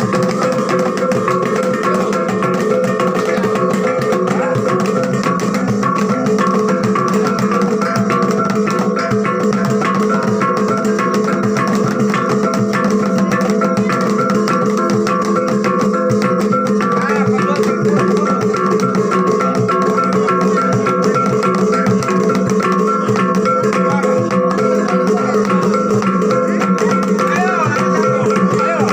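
Continuous music with sustained tones and a steady fine rhythm throughout.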